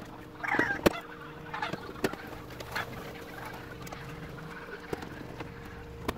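Scattered light clicks and knocks as a TV main board is handled and fitted into its sheet-metal chassis and a screwdriver is picked up, over a faint steady hum.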